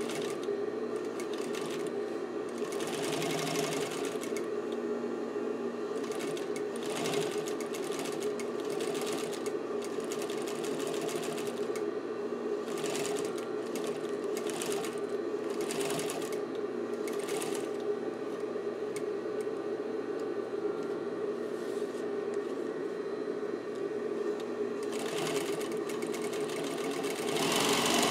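Pfaff 1245 industrial walking-foot sewing machine: its clutch motor hums steadily throughout while the needle stitches in repeated short runs as the pedal engages the clutch, the longest spell in the middle and the loudest near the end.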